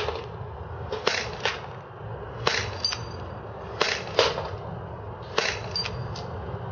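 HFC Mauser HSC airsoft pistol firing steadily, about one shot every second and a half. Each sharp pop is followed about half a second later by the click of the BB striking the metal target, a few of them with a short metallic ring.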